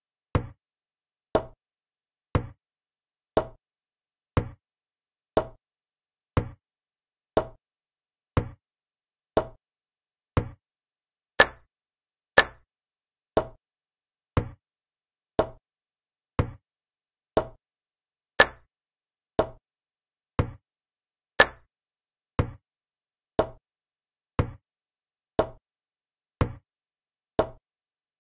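Chess program's piece-move sound effect: a short wooden click as each move is played, about once a second, a few of them louder.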